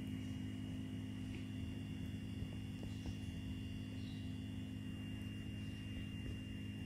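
Steady low electrical hum with a thin high-pitched whine above it, and a couple of faint ticks near the middle.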